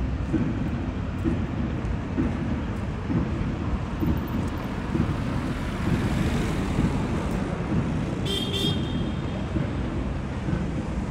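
Street traffic at a roundabout: engines and tyres over a steady low rumble, with a van passing close about six seconds in. A brief high squeal comes a little past eight seconds.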